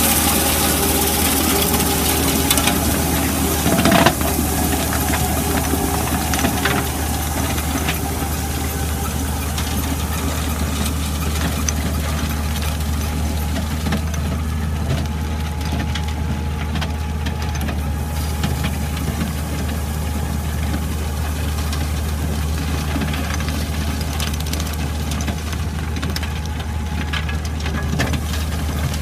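Scorpion 500 land drainage machine's engine running steadily, with a brief louder clunk about four seconds in.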